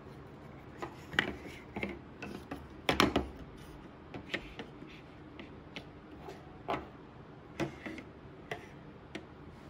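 Laser-cut wooden pieces clicking and knocking against each other and the tabletop as they are handled and set down. A quick cluster of sharper knocks comes about three seconds in, and lighter, irregular clicks follow.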